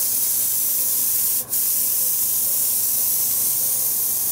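A paint spray gun hissing steadily as it sprays paint onto a model railway carriage body. The spray stops for a moment about a second and a half in, then resumes.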